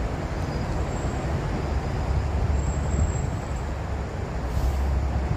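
Steady low rumble of an MTR Kwun Tong line Q-Train coming into the platform, with a faint thin high squeal about two and a half seconds in.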